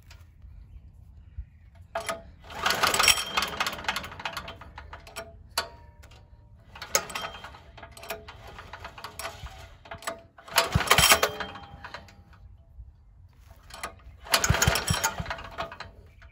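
Small 196cc single-cylinder diesel engine being pull-started by its recoil starter, four pulls in a row after its fuel line has been primed. Each pull turns it over with a fast rattling clatter for a second or two, and it dies away again without staying running.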